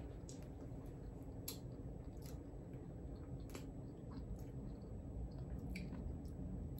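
Quiet chewing of jelly beans, with a few scattered small clicks.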